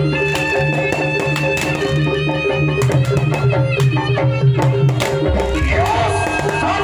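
Music: a drum pattern over held notes and a low drone, with a sliding, wavering melody line coming in about five seconds in.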